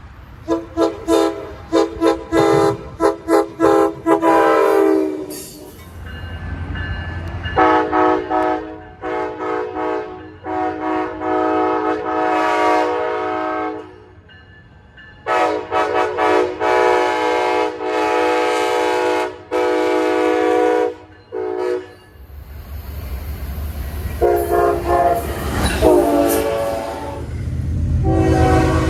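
Train horn sounding a salute: a rapid run of short blasts, then several long held blasts broken by quick toots. Under the later blasts the low rumble of the train grows louder.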